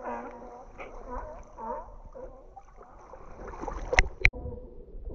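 Young seals calling with a series of wavering, moaning bleats, strongest in the first two seconds. Two sharp knocks come about four seconds in.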